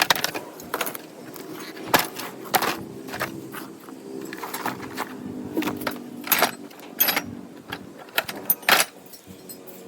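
Metal-on-metal clinks and sharp knocks from hand tools and parts while a mini angle grinder is taken apart for scrap, with a faint steady hum underneath.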